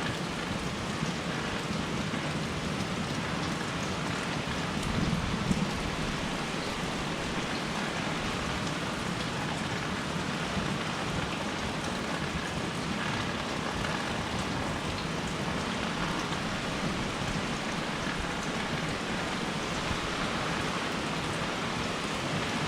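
Steady rain falling and pattering on surfaces, with a brief slight swell about five seconds in.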